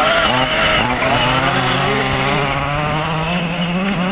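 Small two-stroke petrol engine of a 1/5-scale MCD W5 RC truck running under changing throttle. Its pitch wavers and climbs steadily as the truck speeds up.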